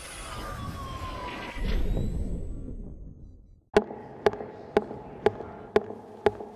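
Electronic logo-sting effects: swishing sweeps and a falling tone, with a boom about one and a half seconds in, fading away. After a moment of silence, a steady sharp ticking starts, about two ticks a second.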